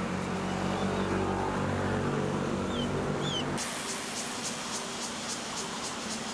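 A steady engine hum with a couple of short rising chirps, which cuts off abruptly about three and a half seconds in. Then comes outdoor ambience with high-pitched insect buzzing that pulses a few times a second.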